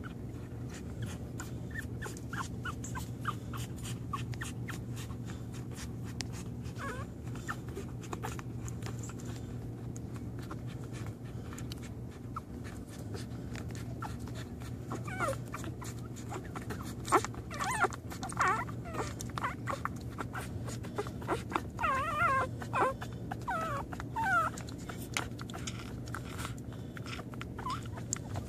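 Newborn American pit bull terrier puppies squeaking and whimpering while they nurse: short, high squeaks, few at first and coming thick and fast in the second half. A steady low hum sits underneath.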